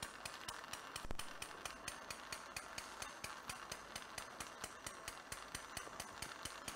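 Faint, fast, even ticking, about eight ticks a second, with one sharper knock about a second in: a light mallet tap on the arthroscopic bone punch as the hole for a lateral suture anchor is made.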